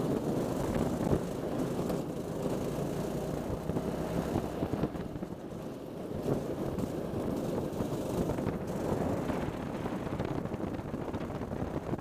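Racing kart engine running under load, heard onboard and mixed with heavy wind noise on the camera microphone; it eases off briefly about six seconds in, then picks up again.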